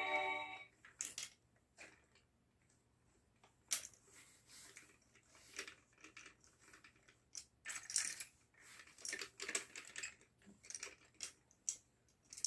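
Scattered light clicks and clatter of plastic Lego pieces being handled, irregular, with short quiet gaps between them.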